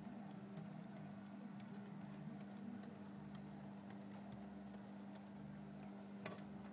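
OO gauge model train running, its coaches' wheels ticking irregularly over the rail joints above a low steady hum. There is one sharper click near the end.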